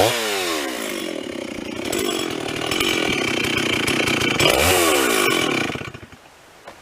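Chainsaw revving down, then running steadily under load in a cut, revving up and down again about four and a half seconds in before the sound drops away about six seconds in.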